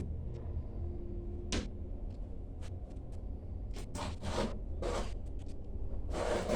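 Fridge packaging being unwrapped by hand: a string of short scrapes and rustles, with a longer rustle near the end.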